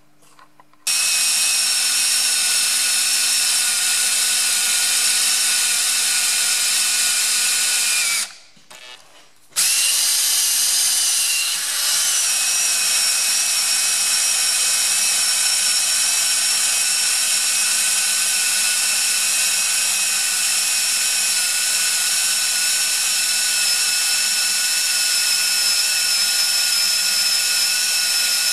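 Electric drill running steadily with an even whine as it bores a small pilot hole into the metal bearing retaining collar on a Ferguson TE20 rear axle shaft. It stops for about a second a third of the way in, then starts again and runs on.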